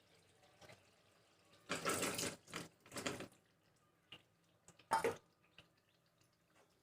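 Boiled chickpeas, wet with their cooking water, tipped into a pan of gravy: three short wet, splashing bursts, the last near the end of the second half.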